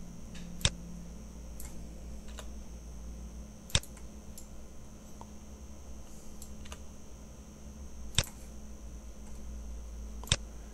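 Four sharp, isolated clicks from a computer mouse and keyboard, a few seconds apart, over a steady low electrical hum and a faint high whine.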